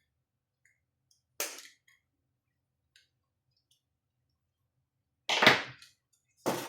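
A few sharp clicks and knocks from handling the opened patient monitor's parts, its circuit board and plastic housing: one short click about a second and a half in, then two louder knocks near the end, with near silence between.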